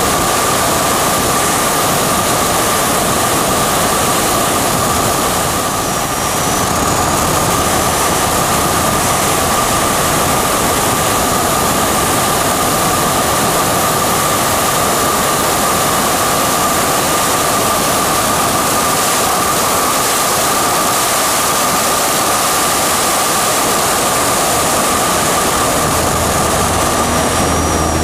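Single-engine propeller plane in flight, its piston engine and propeller droning steadily with a constant high whine, mixed with heavy rushing wind on the microphone.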